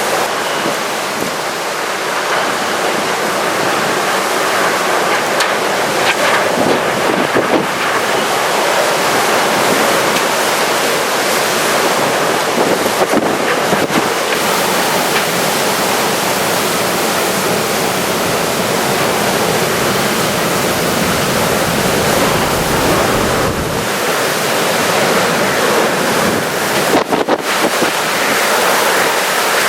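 Typhoon downpour and strong wind: a dense, steady rush of rain and gusts, with wind buffeting the microphone.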